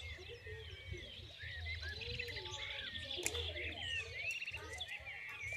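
Several small birds chirping in quick, overlapping calls, with a sharp snip of pruning shears cutting a branch about three seconds in and a few lighter clicks after it.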